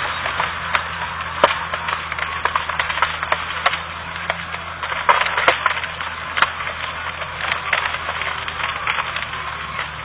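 Heavy machinery running with a steady low engine hum under a dense stream of sharp cracks and snaps, loudest around the middle.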